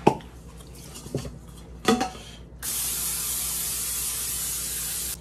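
Aerosol baking spray can hissing steadily as it coats the inside of a tube cake pan, starting about halfway in and cutting off abruptly. A few light knocks from handling the can and pan come before it.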